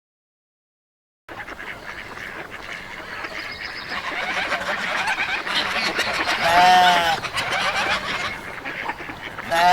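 A flock of farm poultry calling: a dense, busy chatter that grows louder, broken by two loud, drawn-out calls, one about six and a half seconds in and one at the end. It starts after about a second of silence.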